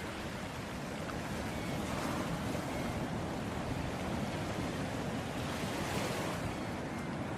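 Ocean waves washing onto a beach, a steady hiss of surf that swells a little twice.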